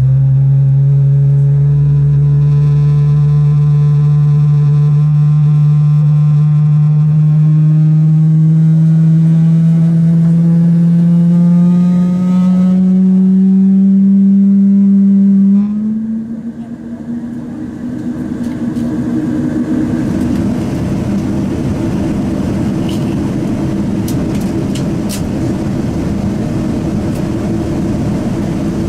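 Boeing 777-300 cabin during the takeoff run: a loud engine hum rising slowly in pitch, which about halfway through breaks off into a steady rushing roar.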